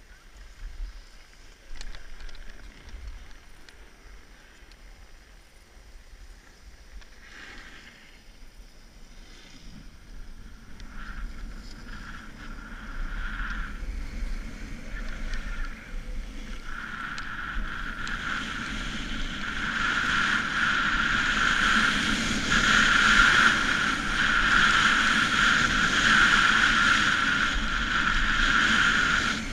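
Skis running and scraping over groomed snow with wind rushing over a helmet-mounted camera, the noise building as the skier picks up speed from about ten seconds in.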